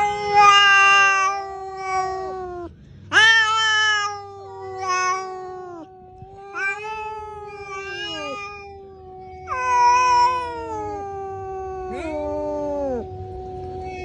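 Two cats caterwauling at each other in a standoff. One holds a long, low, steady yowl while the other breaks in every few seconds with wailing calls that start sharply and fall away at the end. These are the drawn-out threat calls that come before a cat fight.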